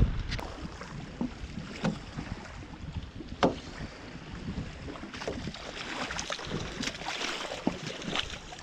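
Water splashing and dripping, with irregular small knocks, as a fishing net is checked and hauled from the water by hand.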